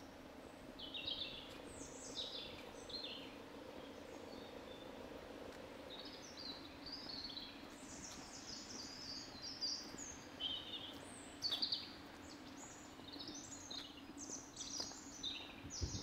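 Several songbirds calling and singing in woodland: many short, high chirps and quick falling trills, some overlapping, over a faint steady background noise.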